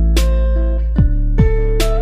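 Background music: guitar-led track with a deep bass and a steady drum beat.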